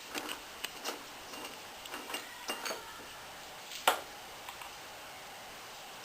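Scattered light clicks and taps, like small hard objects being handled, with one sharper knock about four seconds in.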